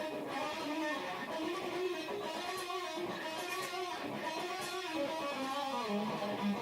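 Instrumental electric guitar music: a melody of plucked and strummed notes.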